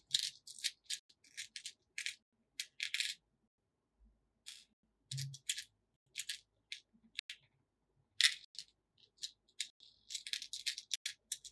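Small plastic beads clicking and rattling against one another and a plastic compartment box as fingers pick through them, in irregular clusters of light clicks with short pauses.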